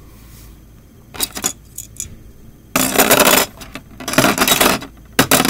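Beyblade tops being picked up by hand from a plastic stadium. A few light clicks, then two spells of clattering, rattling plastic and metal parts about a second and a half apart, and a couple more clicks near the end.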